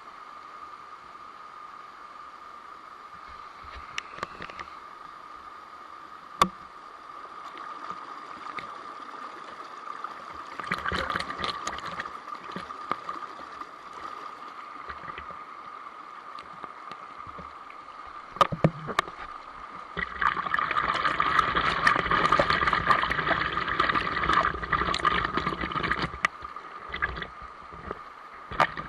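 Running water, as at a stream or small waterfall, with several louder stretches of splashing and crackle and a few sharp clicks, over a steady high-pitched tone.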